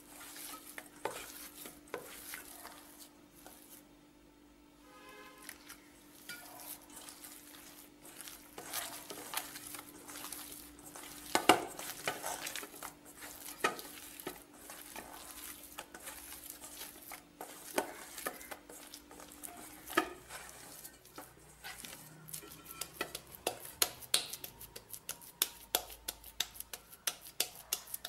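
Hand kneading a soft, wet semolina and maida dough in a stainless steel bowl: irregular squelches and slaps, with the dough knocking against the steel. The knocks come quicker and closer together in the last third as the dough is worked into a ball.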